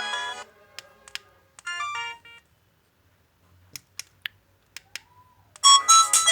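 LG MG160a mobile phone alarm tones played through its speaker: one polyphonic melody cuts off just after the start, followed by several sharp clicks and a brief run of a few electronic notes. Another alarm melody starts near the end.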